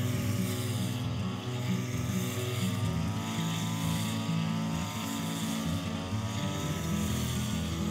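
Petrol brush cutter engine running at cutting speed, its pitch wavering up and down as the line head sweeps through grass.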